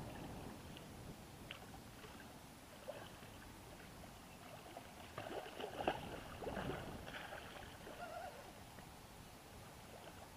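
Hooked wels catfish thrashing and splashing at the water's surface while being played on a spinning rod, with the loudest splashes about five to seven seconds in. Faint water lapping underneath throughout.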